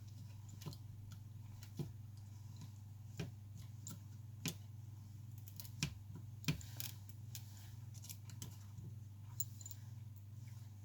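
Irregular sharp clicks and taps of small tools against phone parts, about ten in all, over a steady low electrical hum.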